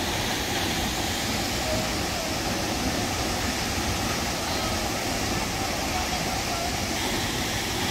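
Steady rush of the Hunua Falls waterfall pouring into its plunge pool.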